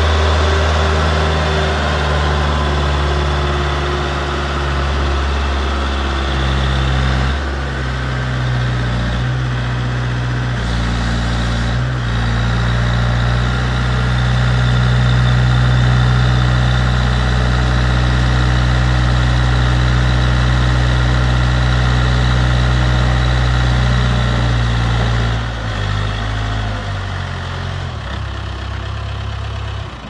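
Manitou MT932 telehandler's diesel engine running while the boom is worked, its speed stepping up and down a few times and dropping back near the end.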